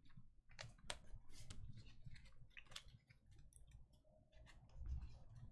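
Faint clicking and scraping of stiff, glossy chromium basketball trading cards being slid apart and handled, with a low bump near the end.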